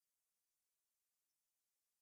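Silence: the soundtrack is all but empty, with only faint hiss.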